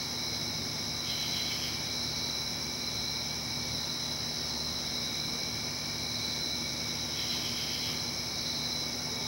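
Night insects such as crickets trilling steadily in several high, level tones over a soft hiss, with a short extra call from another insect about a second in and again near the end.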